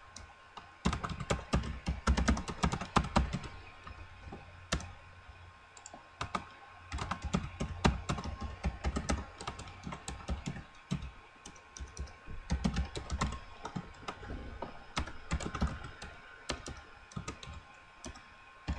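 Typing on a computer keyboard: bursts of quick key clicks with short pauses between them.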